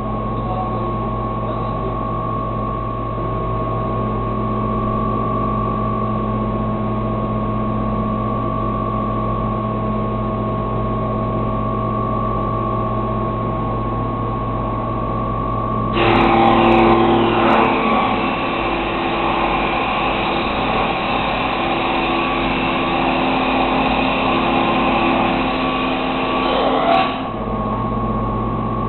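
Broom-handle making machine running with a steady motor hum. About halfway through it turns louder and harsher for roughly eleven seconds, the sound of a wooden stick being machined, then settles back to the steady hum.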